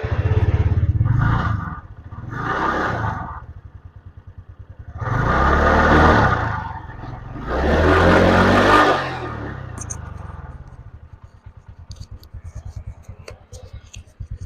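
TVS Ntorq 125 BS6 scooter's single-cylinder engine, freshly started, revved up four times and then settling to idle. It is being run after reassembly to check whether its ticking engine noise is cured.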